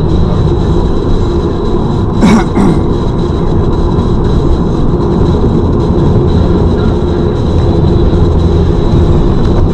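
Steady road and engine noise of a moving car, with a faint steady high whine and one brief louder sound about two seconds in.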